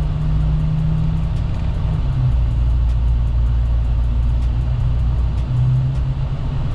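Pickup truck's engine running steadily while driving, a low drone whose note drops a little about two seconds in.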